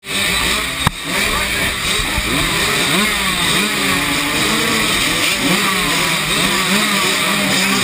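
Several small dirt bike engines running and revving at once, their pitches rising and falling over one another. A single sharp knock about a second in.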